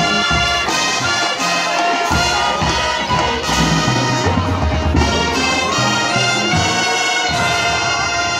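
High school marching band playing, with the brass holding loud chords that change every second or so over drum hits underneath.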